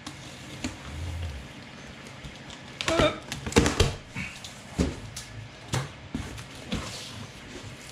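Large cardboard shipping box being opened by hand: the top flaps pulled up and folded back, with a series of cardboard thumps and scrapes, the loudest cluster about three to four seconds in.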